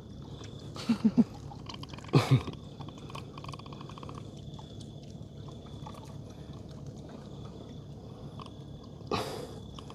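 Short low croaking grunts as air is squeezed out of a dead fish just taken from the net: three quick ones about a second in, then a longer one around two seconds.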